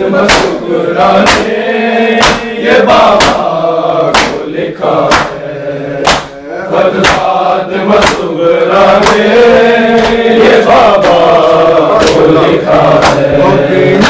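A group of men chanting a noha together, with sharp strokes of open-handed chest beating (matam) about once a second. The strokes thin out in the second half.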